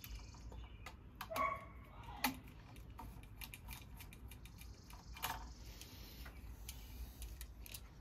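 Faint clicks and scrapes of a screwdriver and stiff copper wires being worked at a light switch's terminals as the wires are undone. There is a brief squeak about a second and a half in.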